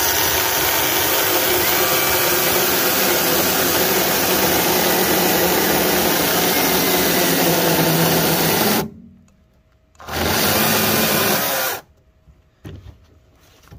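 Greenworks Commercial GS110 battery top-handle chainsaw cutting through firewood for about nine seconds, stopping, then running again for under two seconds. A few light knocks follow near the end.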